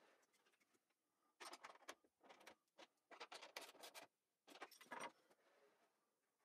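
Faint clicks, knocks and rattles in several short clusters, from the wooden levers and pivot bolts of a wall-mounted fold-down table being handled and folded down.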